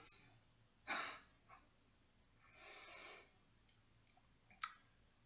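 A woman's soft breathing in a pause between sentences: a short puff of breath, then a longer breath drawn in about halfway through. Small mouth clicks follow near the end, just before she speaks again.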